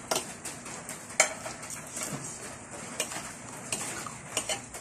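Spoons clinking and scraping on ceramic plates during a meal, a handful of scattered light clicks, the sharpest about a second in.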